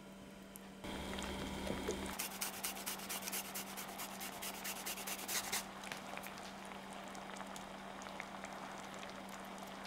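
Fresh ginger rubbed on a fine rasp grater in quick repeated scraping strokes for about three seconds, over a pan of coconut-milk curry sauce simmering quietly.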